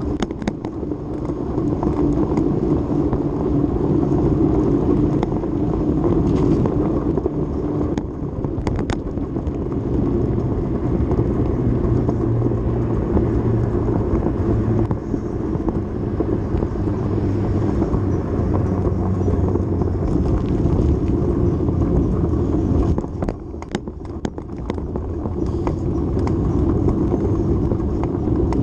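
Steady rumble of wind and road noise from riding a handlebar-mounted ride along the road, heavy in the lows. A few sharp clicks or rattles come in around a third of the way through and again near the end.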